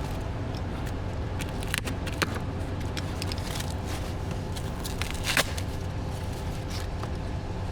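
Plastic packaging of a new air filter being tugged open by hand, giving a few short sharp crackles about two seconds in and again near five and a half seconds, over a steady low background hum.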